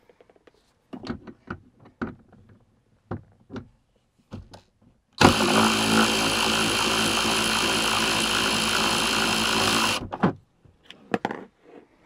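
A few clicks and knocks of handling, then a cordless drill runs steadily for about five seconds, backing out a fastener on the interior trim, and stops suddenly.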